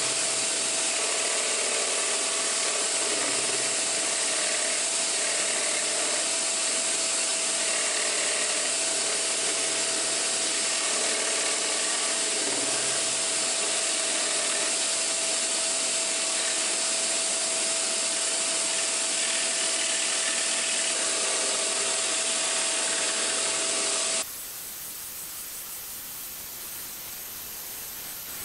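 Hegner scroll saw running and cutting a wooden board with a number 5R blade: a steady hissing sound over a constant hum. About 24 seconds in it drops quieter and changes character.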